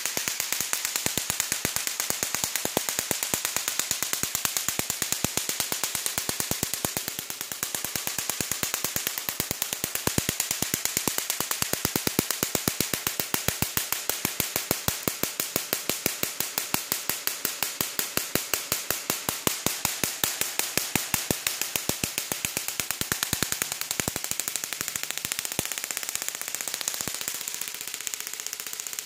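Homemade spark-gap Tesla coil running: its adjustable spark gap and discharge arc crackle as a fast, even train of sharp snaps, many a second, over a steady high hiss.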